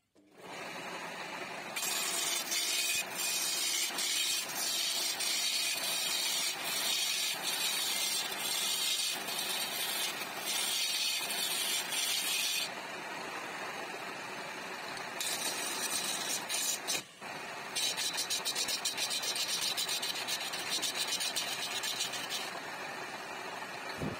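Wood lathe starting up and spinning a wooden blank, with a hand turning chisel cutting into the wood. The loud, rough cutting noise comes in three long stretches, the first from about two seconds in, and between them only the lathe is heard running.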